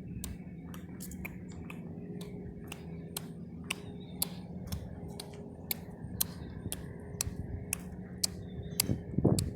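Sharp clicks, a few a second and unevenly spaced, over a steady low hum.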